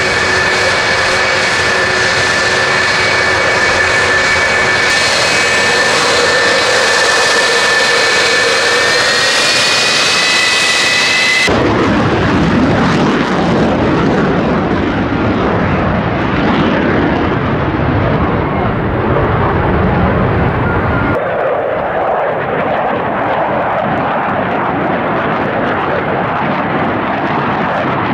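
Jet turbine whine with steady high tones that rise slightly about ten seconds in, then after a sudden cut the loud roar of F-4 Phantom II jet engines flying low past. It changes abruptly again near the end to a duller, more distant roar as the jet climbs away.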